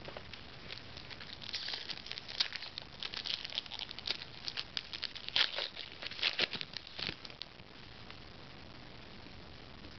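Foil trading-card pack wrapper crinkling and crackling as it is handled and torn open: a dense run of sharp crackles that dies away about seven and a half seconds in.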